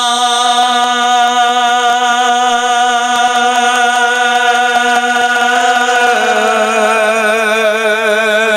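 A man's voice chanting one long held note, steady at first, then stepping a little lower about six seconds in and wavering.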